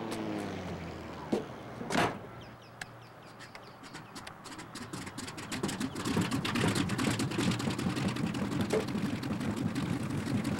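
A door thumps shut about two seconds in. Then a light propeller plane's engine starts up, its rapid pulsing building and running loud from about six seconds on.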